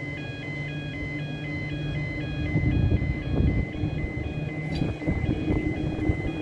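Level crossing warning alarm sounding: two tones alternating rapidly, about twice a second, over a low rumble that swells about halfway through.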